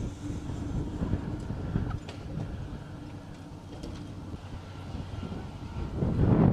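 Low, steady rumbling roar of storm wind around a violent tornado, buffeting the microphone and growing louder near the end.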